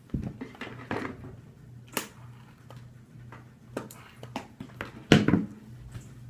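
Handling noise while straightening hair with a flat iron: scattered clicks, hair rustling and light knocks against the counter. There is a sharp click about two seconds in and a heavier thump about five seconds in, over a steady low hum.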